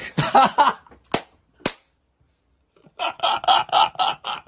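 A man laughing: a short laugh at the start, two sharp clicks, then near the end a quick run of 'ha-ha-ha' pulses, about seven a second.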